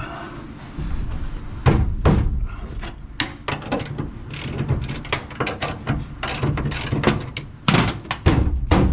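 Irregular run of metal clanks and knocks from a pickup door and its hinge being shifted and worked by hand while the hinge is adjusted, with the loudest hits about two seconds in and near the end.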